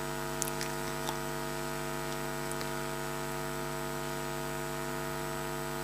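Steady electrical mains hum from the sound system, a buzz of several fixed tones, with a couple of faint ticks in the first second.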